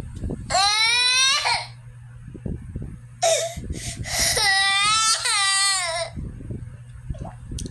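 A baby crying hard in loud, high-pitched wails: a short rising cry, a gasping pause, then a longer wavering cry lasting nearly three seconds.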